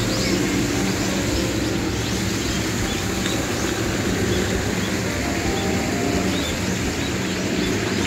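Steady rushing outdoor noise with a low hum under it, and many short, high bird chirps scattered throughout.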